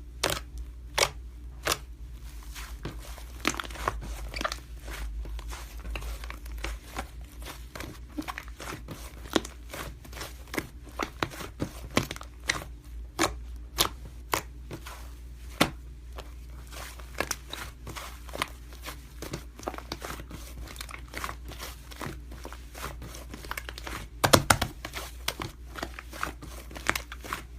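Irregular sharp clicks and crinkly crackles, a few each second, with a quick flurry of clicks near the end.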